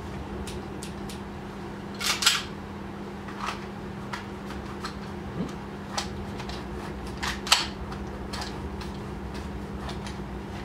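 Scattered clicks and short rattles of an airsoft pistol and holster being handled at the waist, with two louder clusters about two seconds and seven and a half seconds in, over a steady low hum.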